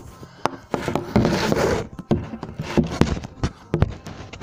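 Handling noise from a handheld camera being moved about: rubbing and rustling against hands and clothing, loudest about a second in, with many sharp knocks and clicks throughout.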